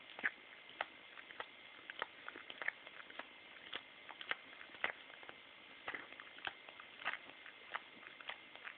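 A dog licking with its tongue and mouth: irregular smacking clicks, a few a second.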